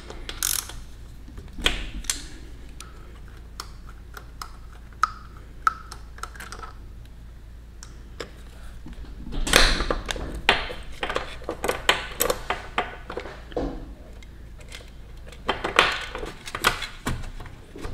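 Light metallic clicks and clinks of hand-tool work on a 2022 Honda Grom's cylinder head: a ratcheting wrench undoes the camshaft's 10 mm retaining bolt, then the camshaft is wiggled free of the head. The clicks come in clusters, busiest about halfway through and near the end.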